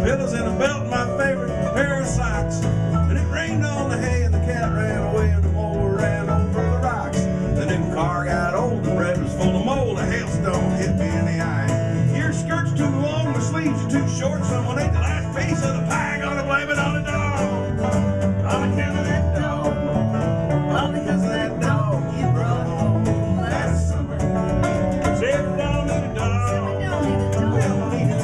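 Live bluegrass-style band playing an instrumental stretch: quick five-string banjo picking over strummed acoustic guitar and a second plucked string instrument, at a steady tempo.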